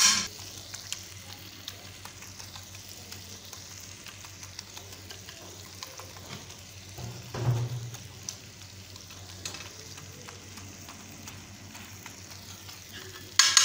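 Brains in tomato masala frying in oil on a wide metal tawa, sizzling steadily while a masher and spoon stir and press them, with light scrapes and ticks against the pan. A louder low knock comes about halfway through.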